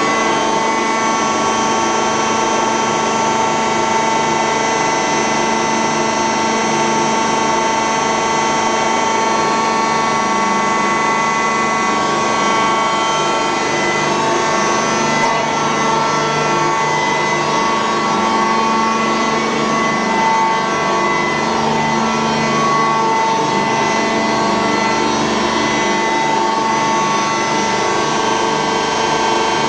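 A heavy lathe running steadily while cutting, giving a constant whine of several held tones over a scraping rasp.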